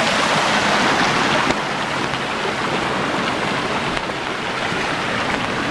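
Storm runoff flowing over rocks across a dirt road, a steady rush of water, a little louder in the first second or so.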